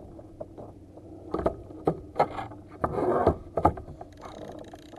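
A series of sharp knocks and scrapes against the plastic fishing kayak as the angler fights a hooked fish, with a longer rough burst about three seconds in.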